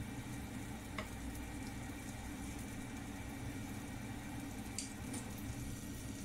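Butter melting and sizzling in a hot nonstick wok, over a steady low hum, with two light clicks, about a second in and near the five-second mark, as chopsticks touch the pan.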